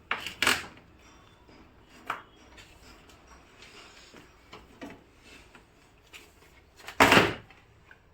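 Rubber door gasket of a small refrigerator being pulled out of its groove by hand. It gives a few short scraping and rubbing noises, with the loudest about seven seconds in.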